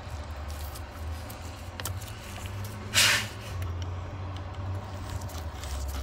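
Faint metallic clicks of a brass retaining nut being worked by hand onto the threads of a Volvo VNL ignition switch, with one short, loud hiss of air about halfway through, over a steady low hum.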